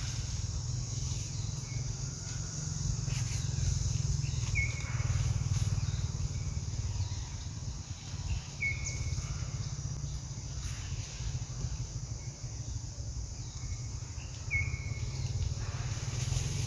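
Outdoor forest ambience: a steady insect hiss and a low rumble, with three short chirps about four seconds apart and a few faint rustles of leaf litter.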